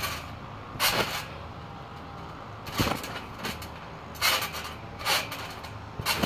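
A person jumping on a trampoline: five thumps of feet landing on the mat, each a second or more apart.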